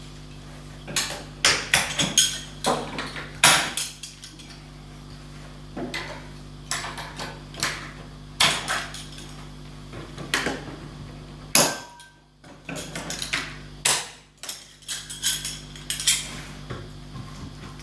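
Clips being levered off a wooden flat-pack shipping crate with a clip removal tool or flathead screwdriver: many irregular sharp clacks and knocks, coming in quick clusters with short pauses between them.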